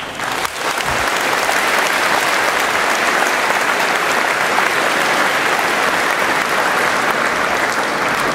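Audience applauding, swelling within the first second and then holding steady.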